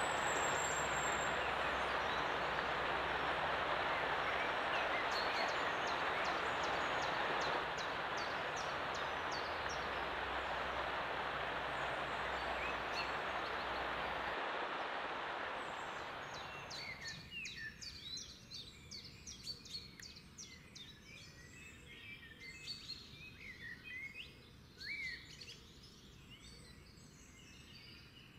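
Mountain stream rushing and splashing over rocks, a steady loud hiss of water that cuts off suddenly a little over halfway through. Then many small birds chirping and singing, with quick high chirps coming thick and fast.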